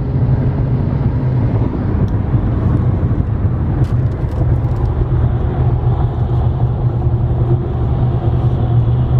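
Steady road and engine rumble inside the cabin of a car driving on the freeway.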